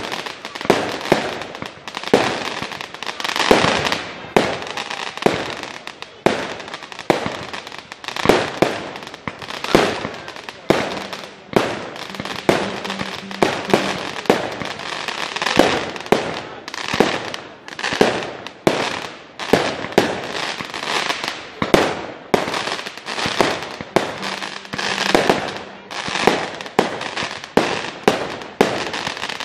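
Aerial firework shells bursting in quick, irregular succession: sharp bangs, often several a second, each trailing off in a short echo.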